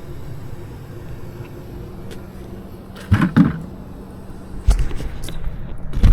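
Several sharp knocks and clatters of hands and tools working on a PVC condensate drain line, in three short clusters, over a steady low hum.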